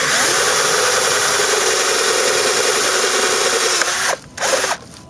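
Cordless drill boring a hole through the plastic trim of a car's centre dashboard bezel. It runs steadily, stops a little before four seconds in, and gives a brief second burst just after.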